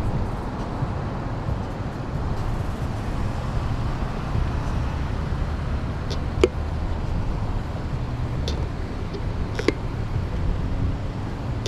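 Steady low rumble of wind buffeting the microphone, mixed with road traffic noise, with two short clicks partway through.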